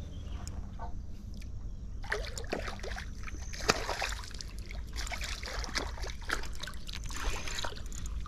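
A hooked fish splashing and thrashing at the water's surface close to the bank, a dense run of splashes from about two seconds in, with one sharp click a little before halfway.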